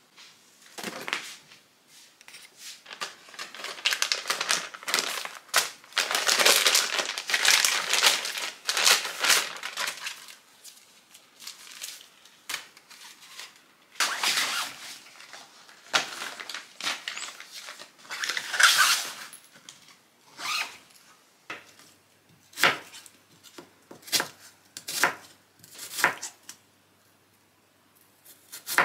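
Rustling and crinkling of plastic pouches and fabric as toiletries and clothes are handled and packed into a suitcase. In the last several seconds, sharp knocks of a chef's knife slicing an onion against a wooden cutting board, about one a second.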